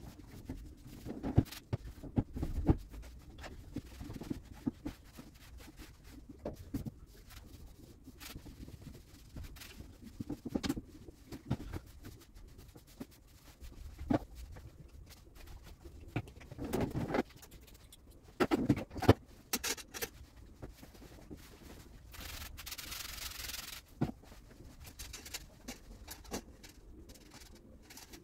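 Cloth wiping and rubbing over surfaces, with scattered knocks and clicks from things being handled and set down, and a hiss lasting about a second and a half roughly two thirds of the way in.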